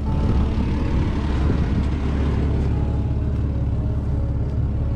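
Ford Falcon ED engine idling steadily, quiet and smooth, just fired up after eight years without running.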